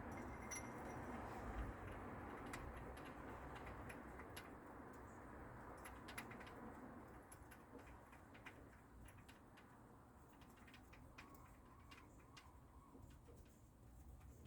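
Near silence: a faint steady hiss with scattered light ticks and clicks, more of them in the second half.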